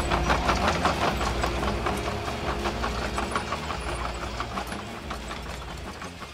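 Heavy-machinery engine chugging with a fast, even knock that slowly fades away as the toy crawler crane drives off.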